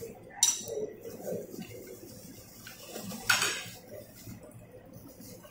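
Chopsticks and ceramic bowls and plates clinking as people eat at a table: two sharp clinks, about half a second in and again a little after three seconds, over a low background murmur.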